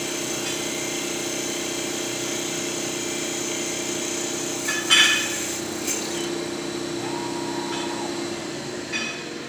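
Mini CNC wood lathe running with a steady motor hum and whine. A sharp knock comes about five seconds in and lighter clicks follow, and the main hum fades out near the end.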